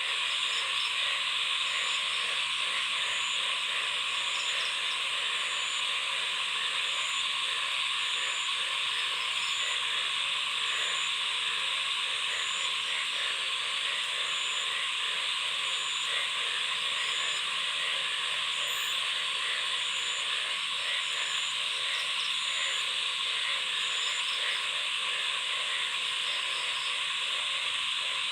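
Dense chorus of many frogs calling at once: a steady, rattling din. A short high note repeats about every second and a half throughout.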